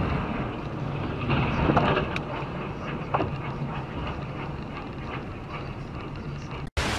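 Steady road and engine drone inside a car driving along a wet highway, with a few faint knocks about two to three seconds in. The sound cuts out abruptly near the end, followed by a short burst of hiss.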